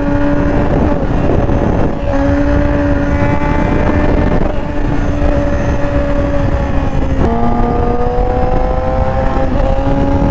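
Yamaha R6 sportbike's inline-four engine pulling at steady high revs, with a steady rush of wind on the microphone. About seven seconds in the engine note drops sharply and then climbs again.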